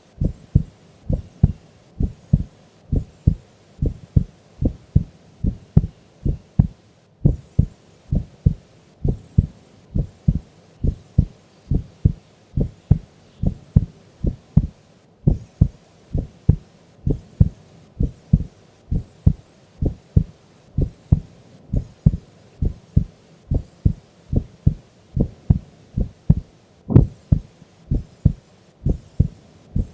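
A sleeping woman's heartbeat, slow and steady at about one beat a second, each beat a close pair of low thumps (lub-dub).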